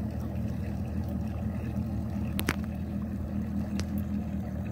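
Outboard motor idling steadily on a bass boat, a low even hum. Two short clicks come through partway in and near the end.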